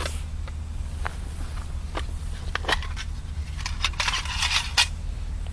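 A small tin being opened and its contents handled: a series of light clicks and taps, then a brief scrape about four seconds in that ends with a sharp click.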